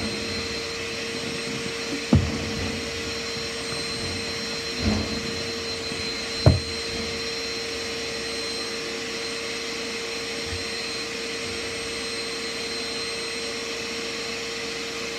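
Vacuum cleaner running steadily, a constant drone with a high whine. A few dull thumps stand out about two, five and six and a half seconds in, the last the loudest.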